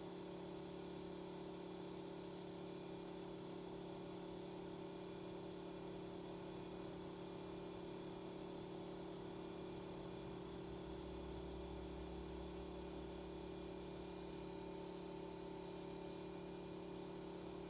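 YIHUA 948 II rework station running steadily: a low hum with a faint high whine and hiss from its hot air blower and vacuum pick-up pump while a chip is being heated off a board. A deeper hum joins about two-thirds of the way in, and two light clicks come near the end.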